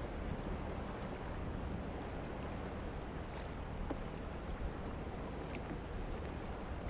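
Small waves lapping against a sea kayak's hull with a steady hiss of wind, and a few faint ticks.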